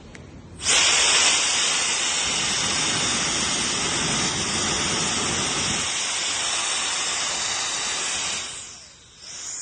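Handheld brushless turbo jet blower switched on, blowing a steady loud rush of air for about eight seconds, then winding down near the end.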